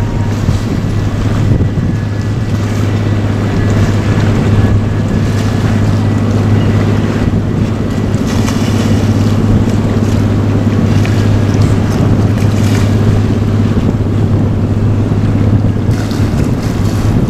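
Steady low drone of a passing container ship's engine, with wind rushing on the microphone.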